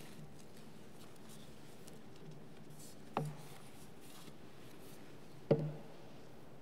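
Two short knocks on a wooden ambo (lectern), picked up by its microphone, the first about three seconds in and the second a little over two seconds later, each with a brief low ring, over quiet church room tone.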